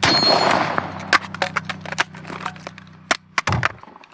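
Rifle being reloaded by hand at speed: a rush of handling noise at the start, then a quick series of sharp metallic clicks and knocks from the magazine and action, with a dull thud near the end.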